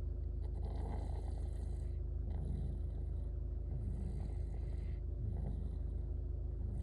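Steady low rumble of a car travelling, heard inside the cabin, with a faint constant hum.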